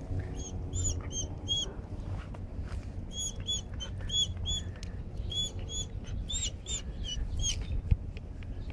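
A timid dog giving short, high-pitched squeals in three irregular runs, its protest at being held by the neck, over low rumbling wind and handling noise on the microphone. A single sharp thump near the end.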